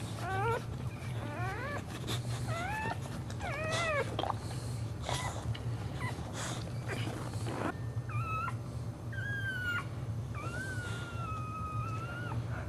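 Boxer dog in labour whining: a string of short whimpers that rise and fall in pitch over the first few seconds, then longer high whines from about eight seconds in, the last held about two seconds.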